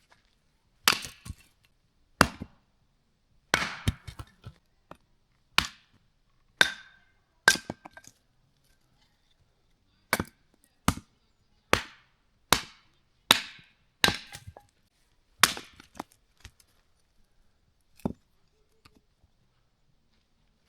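Dry branches of a dead tree being chopped by hand: about fifteen sharp woody blows, roughly one a second, with a short pause in the middle.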